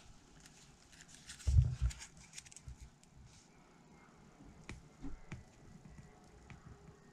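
Handling noises from work on a soldering bench: scattered light clicks and taps, with one dull low thump about a second and a half in and a smaller knock about five seconds in.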